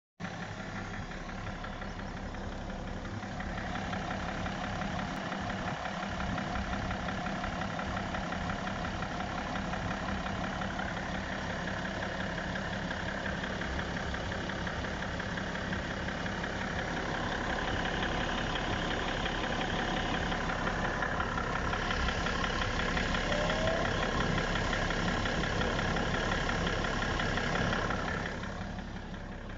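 BMW E60 535d's twin-turbo 3.0-litre straight-six diesel running at idle with a knock from inside the engine, whose cause the owner cannot identify. It gets louder a few seconds in and drops back near the end.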